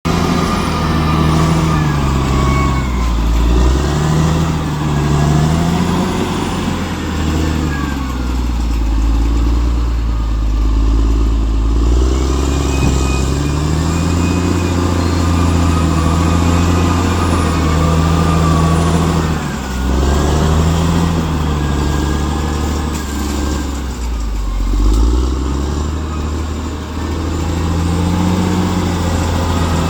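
Bulldozer's diesel engine working under load, its pitch repeatedly rising and falling every few seconds as the load changes.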